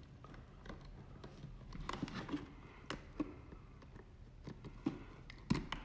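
Faint scattered clicks, taps and rustles of hands handling stiff electrical wires and a plastic Lutron dimmer while joining a red wire to its blue lead.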